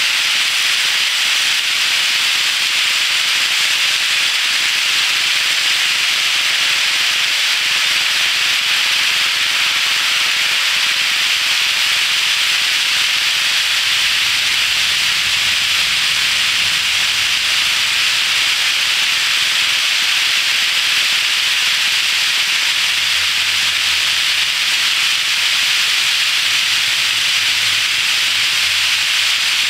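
A long HO scale freight train rolling at speed around a spiral track: the steady hissing rush of many small wheels on metal rails, unbroken throughout.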